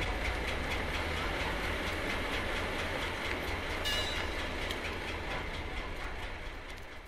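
Train running on rails with clattering wheels and a steady rumble, with a brief horn blast about four seconds in.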